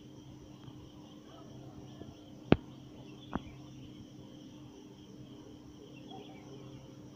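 Faint outdoor ambience of insects chirring over a low steady hum, broken by two sharp clicks a little under a second apart, the first much the louder.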